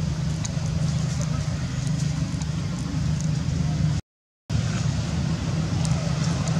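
A steady low droning hum with faint scattered high ticks over it. The sound cuts out completely for about half a second around four seconds in.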